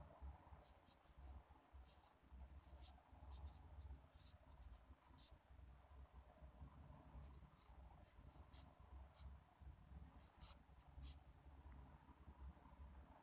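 Pen scratching on paper in quick short strokes, faint, in two runs with a pause between, over a low steady hum.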